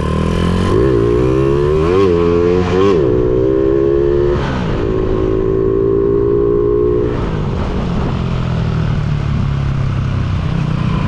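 Honda Supra X single-cylinder four-stroke engine, bored up to 185cc, accelerating hard through the gears. Its pitch climbs and drops back sharply at each of about three gear changes in the first five seconds, then holds steady and settles lower about seven seconds in. This is a test ride of a fresh carburettor jetting setup.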